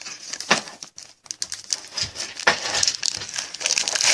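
Trading-card pack wrapper crinkling and cards being handled, an irregular crackle with scattered sharp clicks.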